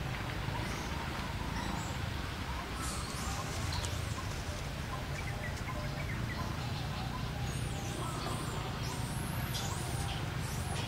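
Scattered short, high-pitched chirps and squeaks over a steady low rumble.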